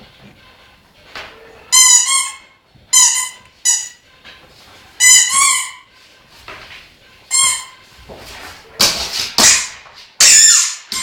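A series of loud, high-pitched squeaks, about seven, each under half a second and wavering in pitch, with a couple of breathy hissing bursts near the end.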